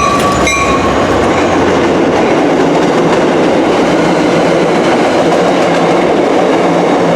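Commuter train passing close at speed: a loud, steady rush of wheels on rail and moving air, with some clickety-clack of the wheels over the rail joints. A high tone fades out about a second in.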